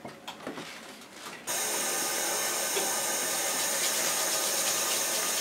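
Steady hiss of compressed gas flowing through the lung-function testing equipment, switched on abruptly about a second and a half in and holding level.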